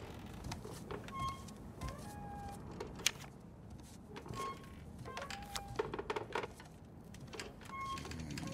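Film sound effects in a hushed scene: pairs of short squeaks, a higher one followed by a lower one, recurring every three to four seconds, with scattered sharp clicks over a low rumble. The sharpest click comes about three seconds in.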